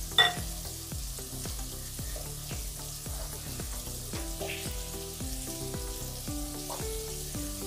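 Flour-dredged chicken drumettes frying in hot oil in a skillet: a steady sizzle, with one short clink just after the start. Background music with a shifting bass line runs underneath.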